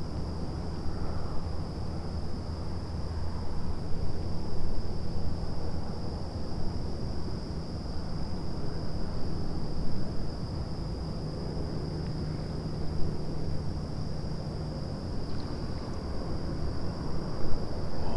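Steady outdoor noise on open water, mostly wind on the microphone, with a constant thin high-pitched tone above it.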